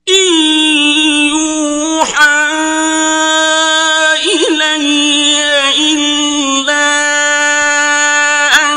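Male reciter's voice chanting Quranic Arabic in the melodic mujawwad style, holding long sustained notes with brief ornamented turns between them.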